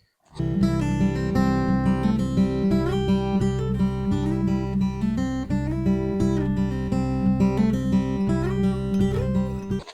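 Background music: acoustic guitar playing a melody over steady low notes, starting just after the beginning and cutting off abruptly near the end.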